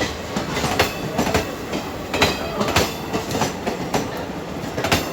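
Passenger train running past, its wheels clattering over the rail joints in a run of sharp clicks over a steady rumble.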